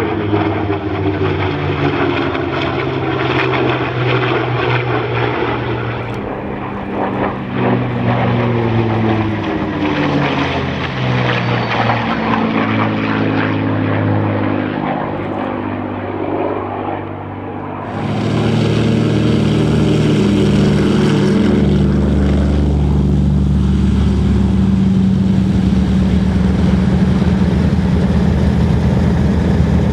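P-51D Mustang's Packard Merlin V-12 engine droning through low flybys, its pitch sliding up and down as it passes. About 18 s in it cuts abruptly to a Douglas DC-3's twin radial engines running steadily and louder as the plane rolls along the runway.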